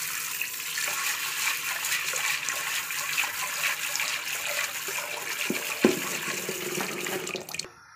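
Water running and splashing as a hand swishes mung beans in a pressure-cooker pot to wash them. The water sound stops abruptly shortly before the end, with a single knock about six seconds in.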